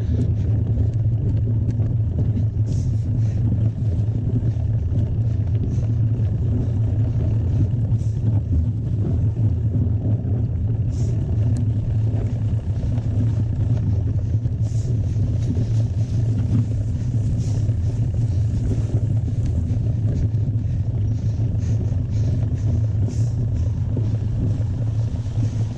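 Steady low rumble of wind and riding noise on a camera carried during a mountain-bike ride, with scattered light clicks and rattles throughout.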